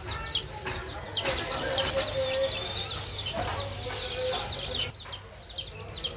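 A brood of baby chicks peeping continuously, many short, high, falling peeps a second overlapping one another.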